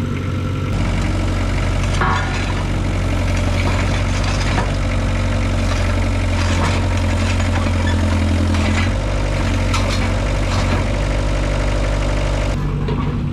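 Compact tracked excavator's engine running under load while the machine climbs steel loading ramps, with scattered clanks and knocks from the tracks and undercarriage. The engine note drops a little about two thirds of the way through.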